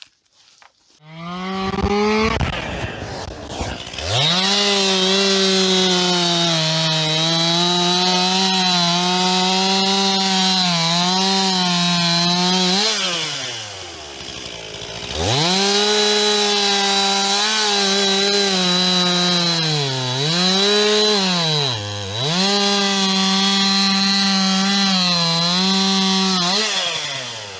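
Stihl MS 261 two-stroke chainsaw starting up about a second in and running at high revs while cutting logs into rounds, its pitch sagging under load in the cuts. About halfway it drops towards idle, then revs up again.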